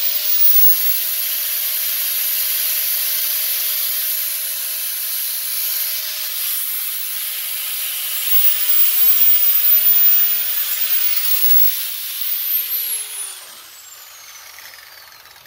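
Parkside grinder grinding the steel edge of a weeding hoe blade, a steady high hiss with a constant whine. About twelve seconds in the grinder is switched off and winds down, its whine falling in pitch as the grinding stops.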